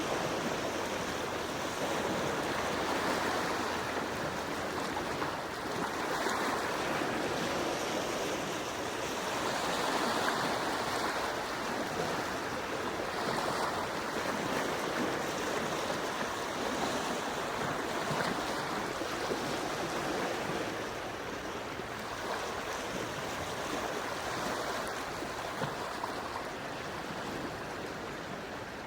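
Small, gentle sea waves washing on the shore, a continuous rushing that swells and eases every few seconds.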